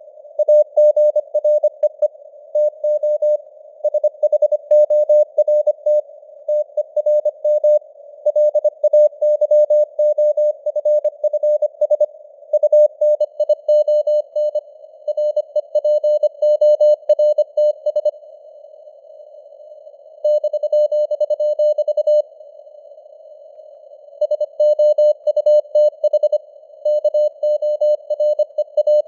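Morse code (CW) sent at 25 words per minute: a single steady-pitched beep keyed rapidly on and off in dots and dashes, over simulated radio band noise with fading signal strength (QSB). The keying breaks off briefly twice about two-thirds of the way through.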